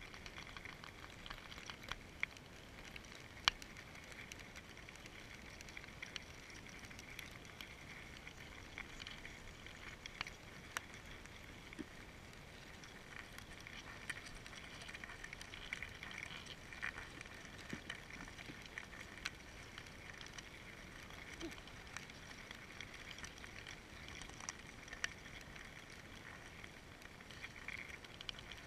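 Faint outdoor ambience: a steady high hiss with scattered small sharp clicks and ticks.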